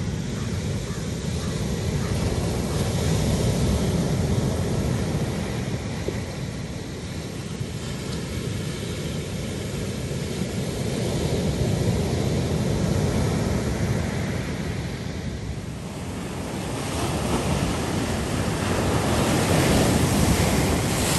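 Heavy post-storm surf breaking and washing up a sandy, stony beach, swelling and ebbing wave after wave, with wind on the microphone. A louder, hissier surge builds near the end.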